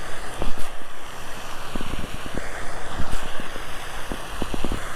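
Wind buffeting the microphone, with a scatter of light clicks starting a little under two seconds in.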